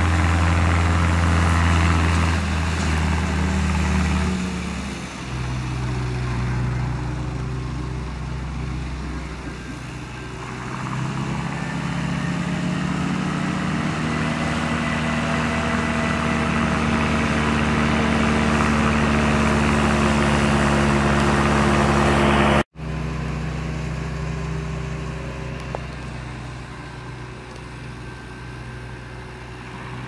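Reform Mounty tractor's diesel engine running steadily under load while it drives a SIP Opticut disc mower through the grass. The engine note drops a few seconds in and rises again around ten seconds in. The sound cuts out for a split second about two-thirds of the way through.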